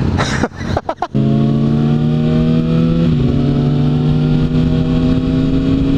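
Kawasaki Ninja ZX-6R sport bike's inline-four engine pulling steadily under way, its pitch climbing slowly as it gains speed, with a brief dip about three seconds in. The sound is broken up and briefly drops out during the first second.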